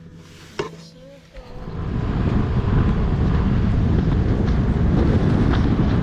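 A single soft click about half a second in, then from about a second and a half in, wind buffeting the microphone: a loud, steady, low rumble.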